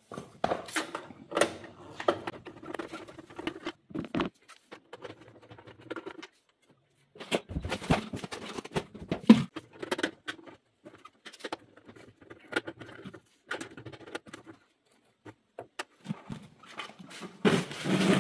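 Irregular clicks, scrapes and rattles of a nut driver turning out the screws of an electric kiln's sheet-metal control box and the box being handled and swung open, with one sharp metal knock about nine seconds in.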